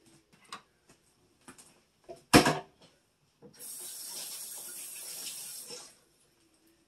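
A few light clicks and a loud clunk about two seconds in, then a kitchen sink tap running for about two and a half seconds before it is shut off.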